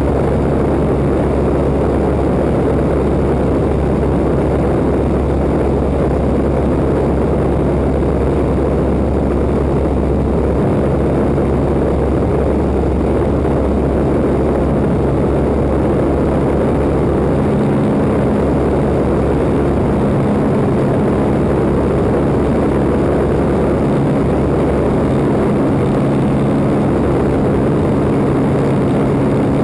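1940 Waco biplane in flight: its engine and propeller make a loud, steady drone, with rushing wind on the camera mounted out on the wing. The engine note shifts slightly about halfway through.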